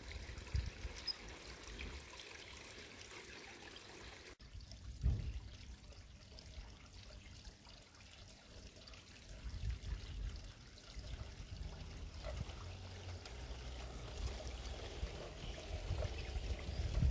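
Garden pond water trickling steadily, with scattered low rumbles underneath.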